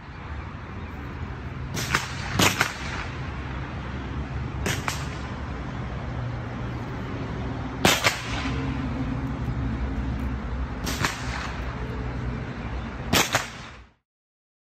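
.22 rifle shots from a shooting range: about half a dozen sharp cracks at irregular intervals, two of them in quick pairs near the start and near the end, over a steady low background rumble.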